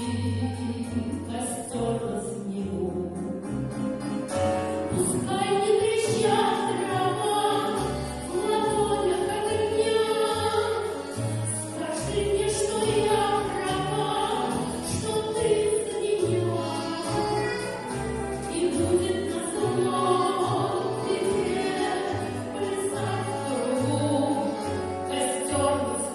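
A woman singing a Russian pop ballad in a trained, academic style with vibrato, over instrumental accompaniment that carries a stepping bass line.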